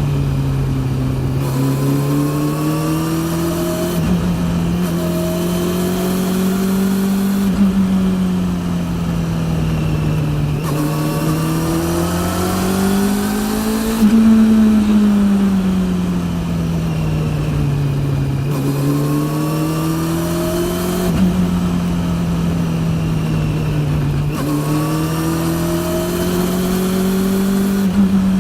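Honda CB400 NC42's inline-four through a TSR E02 slip-on exhaust, heard while riding: the engine note rises and falls in long swells as the rider opens and closes the throttle, loudest about halfway through. The drive chain is very loud, in need of replacement.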